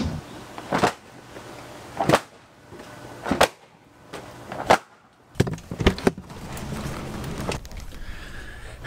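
Rug being shaken and beaten out by hand, with sharp smacks about every second and a half, then a quicker run of three.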